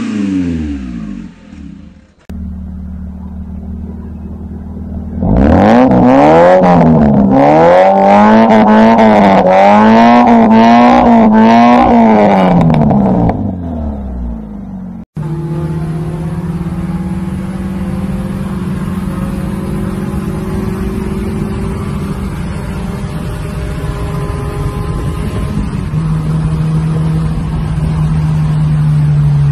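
Maruti Suzuki Zen engines through custom aftermarket exhausts. First a car's revs fall away and it settles into a steady idle. Then it is blipped repeatedly, revving up and down about once a second for some eight seconds. After a cut, another car idles with a steady deep drone that rises slightly near the end.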